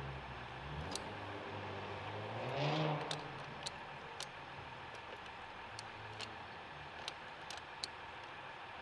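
Locking pliers clicking and scraping on a car battery's terminal nut as the clamp is worked loose: scattered sharp metallic clicks. Under them runs a steady low vehicle hum, with a vehicle passing close by, loudest about three seconds in.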